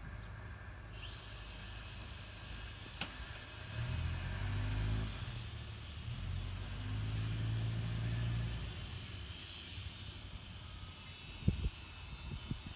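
Distant drone and whine of a Fairchild Swearingen C-26B Metroliner's twin turboprop engines as it climbs away out of sight, with a low rumble that swells twice. A few short knocks come near the end.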